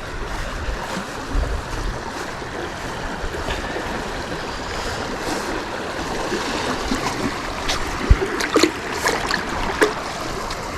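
Steady rushing of a high, fast-flowing river, with a few sharp knocks or splashes about eight to ten seconds in.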